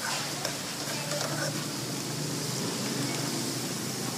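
Coconut-milk sauce with chopped pork and fish paste bubbling and sizzling steadily in a metal pan on a portable gas stove, with a light ladle click at the very start.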